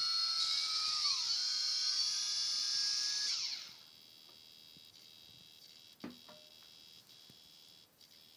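Hobby RC servos on a DIY camera gimbal whining as they drive the camera cradle, the whine made of several high tones whose pitch slides down about a second in. The whine cuts off about three and a half seconds in, leaving a faint high hum, with a single click about six seconds in.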